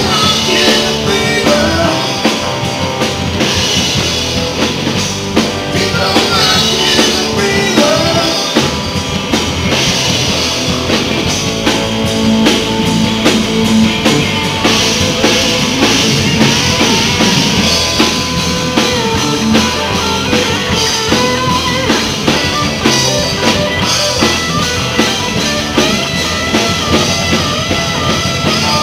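Live blues-rock band jamming: drum kit, electric guitars and bass. In the first seconds a harmonica is played through a microphone held in cupped hands.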